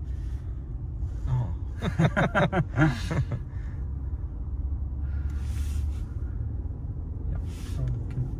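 Steady low road and tyre rumble inside the cabin of a 2021 Mercedes S-Class moving at motorway speed. A short burst of voice comes about two seconds in.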